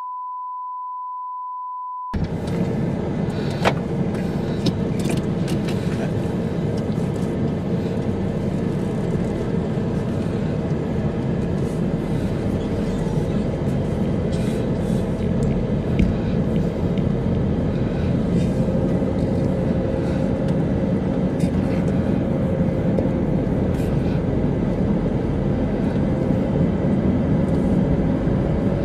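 A steady test-card beep, one unbroken tone, for about two seconds, which then cuts off. It gives way to a car driving, heard from inside the cabin: a steady low rumble of engine and tyres on the road.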